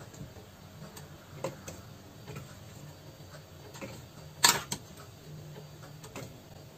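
Scattered light clinks and taps of a kitchen utensil against a pot and glass jars as cucumber salad with its liquid is spooned into the jars, the loudest clink about four and a half seconds in.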